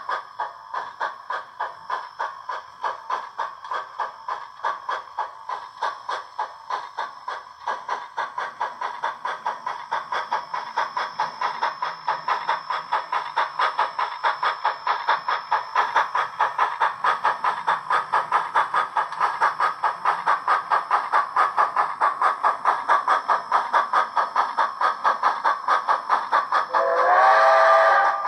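Soundtraxx TSU-2200 Steam2 sound decoder in a model 0-8-0 steam locomotive, playing a steady beat of steam exhaust chuffs through the locomotive's small speaker. The chuffs get quicker and louder as it picks up speed, and near the end a steam whistle blows once, briefly.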